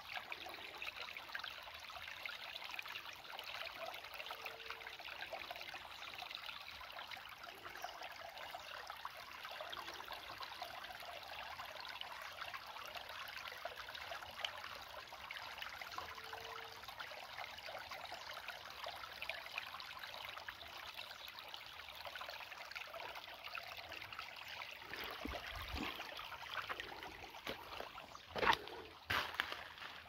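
Shallow creek water trickling and babbling over rocks, a steady running sound, with a few knocks near the end.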